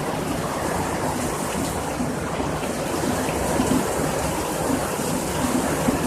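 Heavy hailstorm downpour: a steady, dense hiss of hail and rain falling, with scattered ticks.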